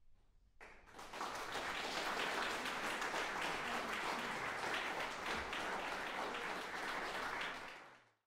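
Audience applauding. The applause starts after about half a second of quiet, swells within a second, holds steady and fades out near the end.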